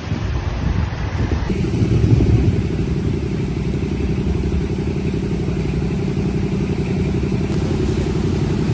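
Street traffic of motorcycles and cars, engines running in a steady low rumble.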